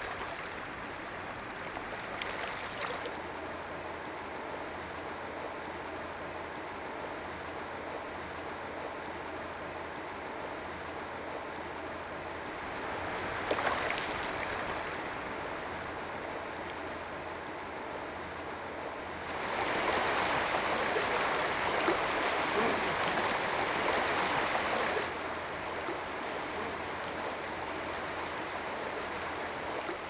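A shallow, stony stream running, with spawning salmon splashing at the surface now and then. The water noise grows louder for about five seconds after the middle, then drops back.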